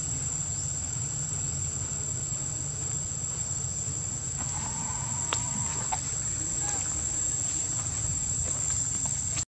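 Steady high-pitched drone of insects, over a low rumble, with a few faint short chirps about halfway through.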